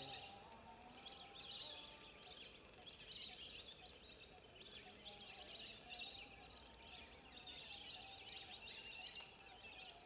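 Faint, overlapping chatter of many birds, short high chirps coming in clusters every second or so, over soft outdoor hiss.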